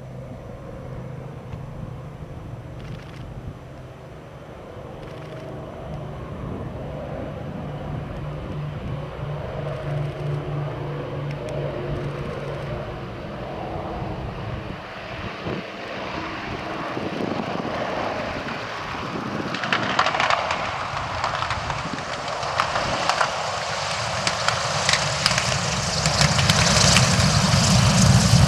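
Twin Merlin V12 engines of a de Havilland Mosquito running with the landing gear down, a steady drone that grows louder as the aircraft comes closer. In the last third the sound turns louder and rougher, with a crackling edge.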